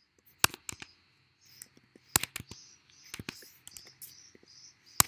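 Typing on a computer keyboard: irregular key clicks, with three louder strokes standing out.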